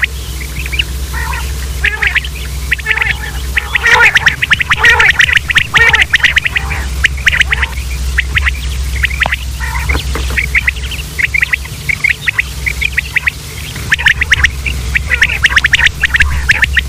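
Common quails calling: many short, rapid chirping calls overlapping one another, loudest about four to six seconds in and again near the end, over a steady low hum.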